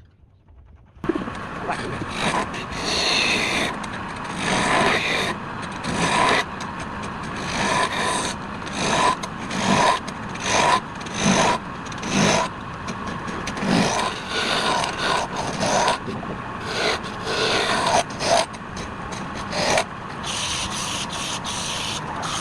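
Wood being rubbed and scraped during woodturning, in uneven strokes about once a second. It starts suddenly about a second in and turns into a steadier rub near the end.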